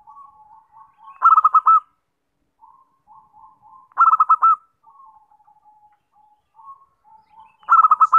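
Zebra dove (perkutut) singing: three loud, quick rolling coo phrases about three seconds apart, with softer broken cooing notes between them.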